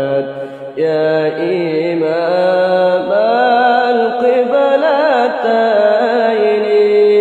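Devotional Arabic nasheed in praise of the Prophet Muhammad: one voice holding long notes that slide and waver in ornate melismatic runs.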